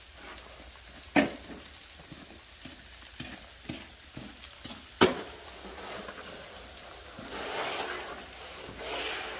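Sleet (ice pellets) falling with a steady crackling patter. Two sharp knocks come about a second in and about five seconds in, and a snow shovel scrapes across the icy driveway near the end.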